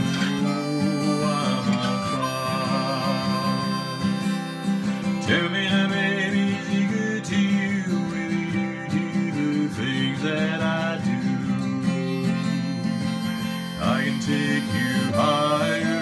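Acoustic guitar strummed steadily while a harmonica plays wavering melody lines that come and go, with a man singing.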